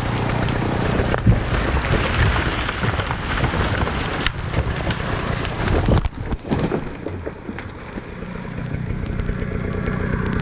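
A tree crashing down through the branches with crackling and snapping and a heavy thud about six seconds in, then a chainsaw idling.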